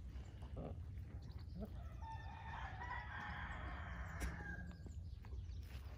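A rooster crowing once, a long crow that starts about two seconds in and lasts about three seconds.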